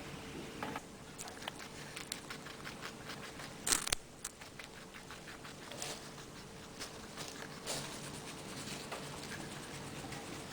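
Guinea pig chewing a carrot: many quick, crisp crunching clicks, with one louder crunch about four seconds in.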